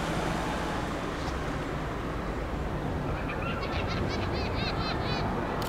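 Steady street traffic noise, with a bird giving quick series of short chirps from about three seconds in.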